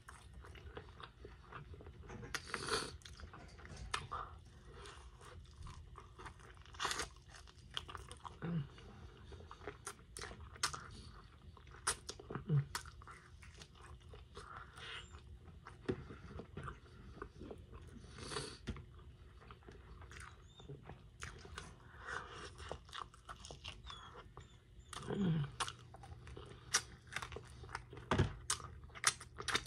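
Close-miked chewing and biting into chicken wings: wet mouth clicks, smacks and crunchy bites, coming irregularly and repeatedly.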